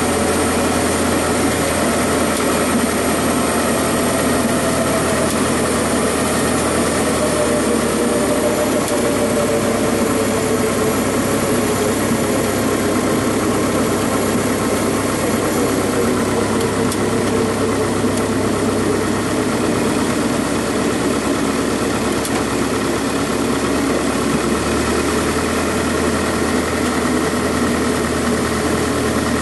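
Single-engine piston Cessna's engine and propeller running at low, near-idle power during the landing rollout and taxi, a steady drone heard inside the cockpit.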